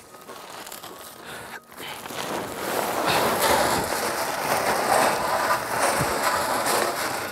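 Lucerne pellets poured from a sack into a plastic feeder drum: a steady rattling patter of pellets hitting the container, building up about two to three seconds in.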